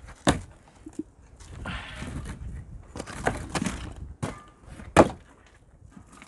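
Large rough stones knocked and scraped against each other as they are set by hand into a dry-laid stone wall: several sharp knocks, the loudest near the start and about five seconds in, with stretches of grinding scrape between.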